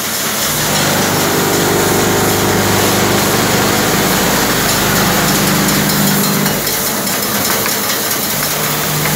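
Automatic wall-plug assembly machine running, fitting screws into plastic wall plugs: a steady mechanical hum over a constant hiss. Its droning tone drops out about six and a half seconds in and comes back near the end.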